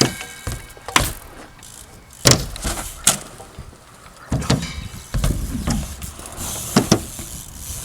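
A string of sharp knocks and clatters, about six, with a low rolling rumble under the second half. These fit a BMX bike's wheels and pegs hitting and rolling on wooden skatepark ramps and a box.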